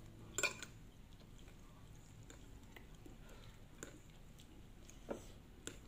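Quiet eating sounds: chewing a mouthful of noodles, with a few short clicks, the loudest about half a second in and more near the end as a metal fork works through noodles on a ceramic plate.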